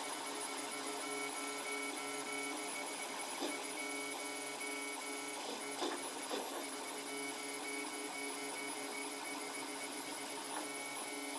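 Protomaker Black Sprint 3D printer running a print: its stepper motors make a steady, multi-toned whine, with a few brief clicks.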